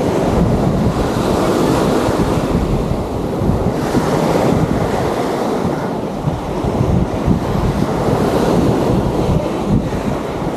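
Sea surf washing onto a sandy beach, with wind buffeting the microphone in a steady rumbling noise.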